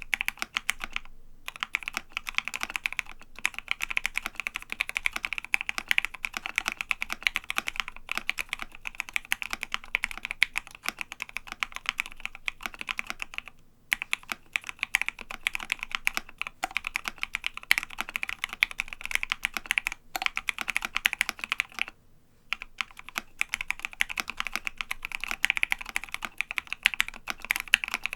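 Fast, continuous typing on a Savage65 custom 65% keyboard with lubed Gateron Ink Black linear switches and MT3 Godspeed PBT keycaps on an FR4 plate. There are a few brief pauses, about a second in, near the middle and about two-thirds through.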